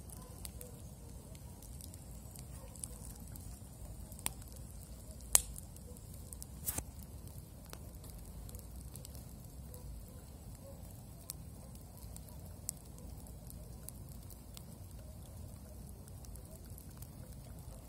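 Wood campfire crackling, with scattered sharp pops over a steady low rumble. The loudest pop comes about five seconds in, with a double pop a second or so later.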